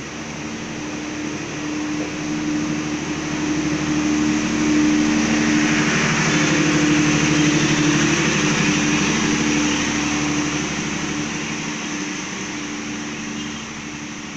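Passenger train coaches rolling past at low speed as the train leaves the station: wheel-on-rail noise and a steady mechanical hum swell to a peak about halfway through, then fade as the train pulls away.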